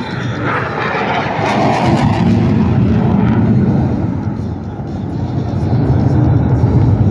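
Jet roar from a Blue Angels F/A-18 Super Hornet flying past: a loud rushing noise with a whine that glides downward in the first second or two, easing a little near the middle and building again toward the end.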